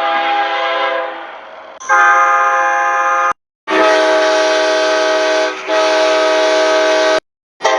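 Train air horns sounding chords in edited stock sound-effect recordings. One blast fades away over the first two seconds, then a different horn cuts in for about a second and a half and stops abruptly. After a short silence comes a long blast of about three and a half seconds with a brief break partway through.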